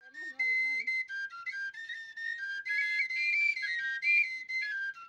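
Three small end-blown flutes playing an old Andean dance tune together in near unison: a high, shrill melody of short held notes that step up and down, in phrases with brief breaks.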